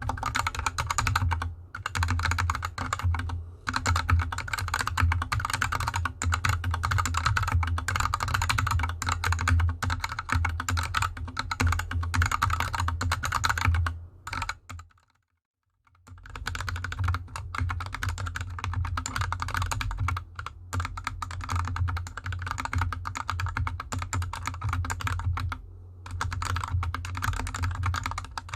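Continuous fast typing on a GK64X 60% mechanical keyboard with Gateron Yellow linear switches and DSA keycaps, on a desk mat. The switches are unlubed at first; after a brief silence about halfway, typing resumes with the same switches lubed with Krytox 205g0.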